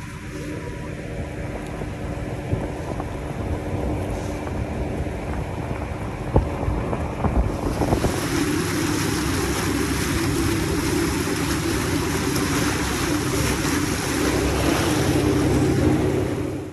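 Small aluminium fishing boat running under way: its engine runs steadily under the rush of its wake and bow wave, with wind on the microphone. The rush of water and wind gets louder about halfway through.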